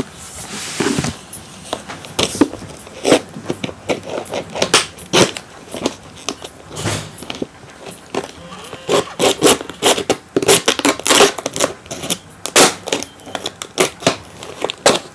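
Packaging of a new HDMI cable being handled and opened: a long run of irregular crackles and rustles, busier in the second half.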